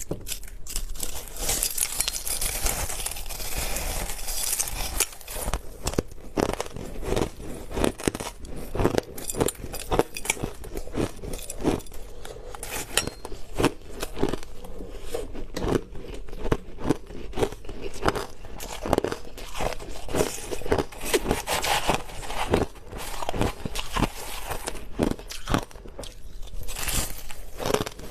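Close-up crunching of hard crushed ice being bitten and chewed, a dense run of sharp cracks and crunches with brief pauses between bites.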